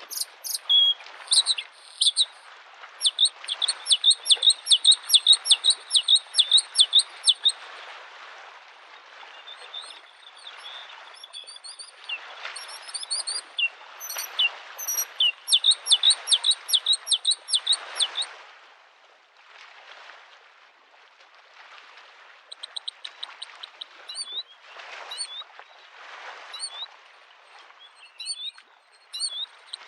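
A bluethroat singing in phrases of fast, repeated high notes, with a pause in the song past the middle. Small lake waves wash against the shore, swelling and fading underneath.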